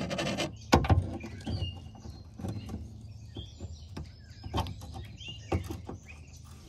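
Needle-nose pliers clicking and scraping against a truck door's window track while picking at a stuck piece of broken glass. There are several sharp taps, the loudest about a second in, and a few faint high chirps.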